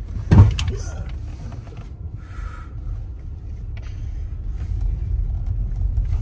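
Car cabin noise while driving slowly over a rough dirt road: a steady low rumble from the tyres and engine, with one loud knock about half a second in.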